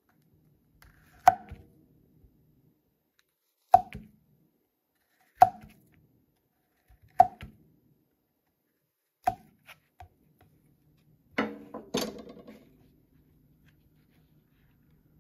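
Kitchen knife slicing through a porcini (king bolete) cap, each cut ending in a sharp tap of the blade on a plastic cutting board: five cuts about two seconds apart. Then a short flurry of knocks and shuffling as the slices are handled.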